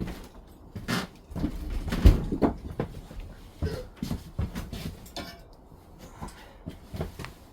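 A series of irregular knocks and clatters of objects being handled, the loudest about two seconds in.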